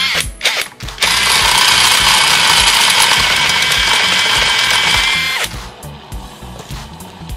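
Cordless drill spinning a car alternator by its pulley nut, which turns the belted electric motor: a couple of short blips, then a steady run of about four and a half seconds that stops suddenly. Background music with a beat plays throughout.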